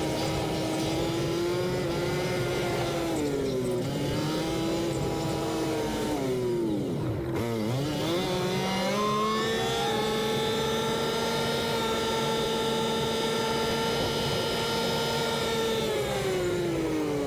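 Yamaha Wolverine side-by-side's engine heard from the cab while riding, with road noise. It eases off twice and drops almost to idle about seven seconds in as the machine stops. It then climbs in pitch and holds steady as the machine speeds up to about 40 mph, and falls again near the end as it slows.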